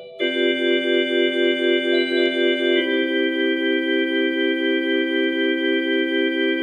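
Hauptwerk virtual pipe organ, sounding the sampled Boezemkerk Bolnes organ, playing slow held chords. The sound pulses evenly, about four to five times a second, and the chord changes once about three seconds in.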